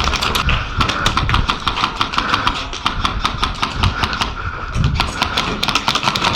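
Airsoft guns firing: a dense, uneven run of sharp clicks and snaps.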